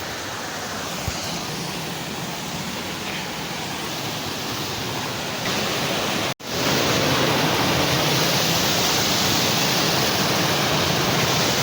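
Steady rush of water falling at a waterfall. It cuts out for an instant about six seconds in and comes back louder.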